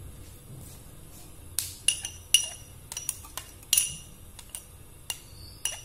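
A metal utensil clinking against a small glass bowl as chopped garlic is scraped out of it into a wok: a quick run of about a dozen sharp, ringing clinks starting about a second and a half in.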